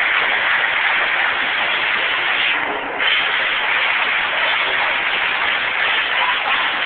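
A huge stadium crowd cheering as a steady, loud wall of noise for the team running onto the field, dipping briefly about three seconds in.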